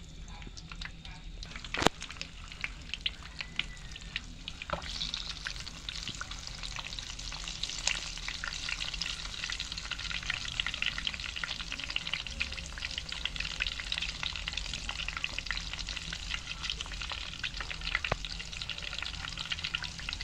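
An egg frying in a pan, the oil sizzling and crackling steadily, growing louder and denser about five seconds in. A single sharp click about two seconds in is the loudest moment.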